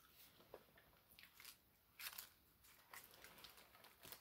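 Faint chewing of a burger: soft mouth clicks and small crunches, scattered through near silence.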